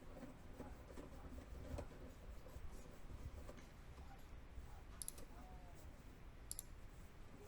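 Faint room tone with a low rumble and a few soft ticks, and two small sharp clicks about five and six and a half seconds in.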